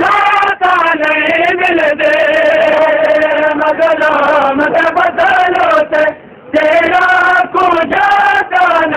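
Men chanting a noha, a Shia lament, in a sustained melodic line, with a brief pause about six seconds in.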